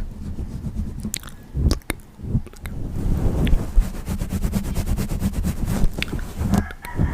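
An insect chewing, picked up very close: a fast run of tiny crunching clicks over a low rumble, thickest around the middle.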